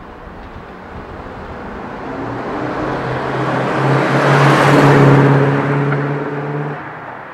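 Mercedes-Benz W126 560SEL's 5.6-litre V8 driving past at a normal, steady pace through an MEC Design aftermarket exhaust in its loud 'Earthquake' version. The steady exhaust note swells as the car approaches, is loudest about five seconds in, then drops away as it drives off.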